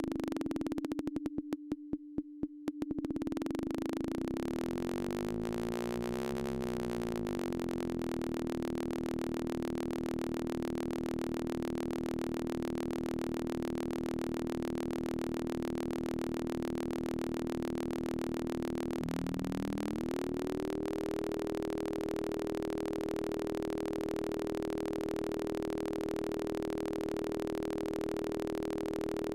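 Synthesizer tones from a Max MSP patch driving an oscilloscope's left and right channels: a low electronic hum near 300 Hz with shifting, beating overtones and a brief pulsing early on, settling into one steady tone. About 19 seconds in the pitch glides up and holds at the new tone.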